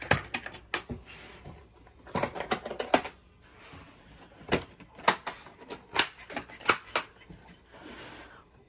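Clicks, clacks and rattles of a DeWalt hard plastic mechanics tool case being handled and opened, in several quick clusters, with sliding and rubbing sounds between them.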